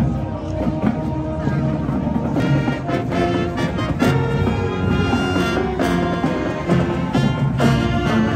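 Marching band music: brass and saxophones playing a tune over a steady drum beat.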